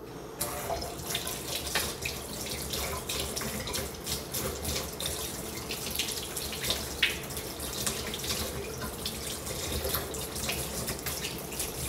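Kitchen faucet running into a sink as dishes are washed, a steady rush of water with frequent small clinks and knocks.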